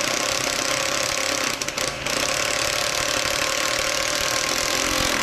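Electric drill running steadily under load, boring straight down through a round metal tube of a scooter frame; it eases off briefly about two seconds in.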